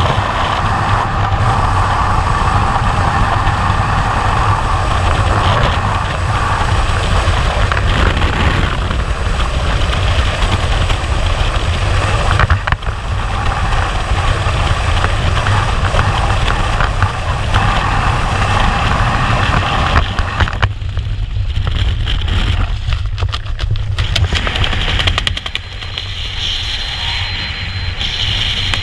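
Freefall wind rushing over a skydiver's helmet-mounted camera microphone: a steady, loud, rumbling rush that changes in character about two-thirds of the way through and eases a little near the end.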